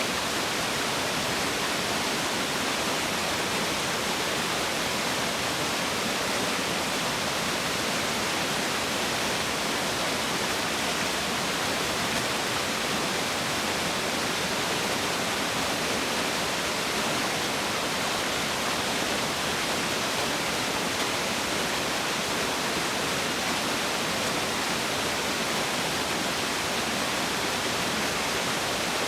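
Waterfall pouring steadily: an even, unbroken rush of water.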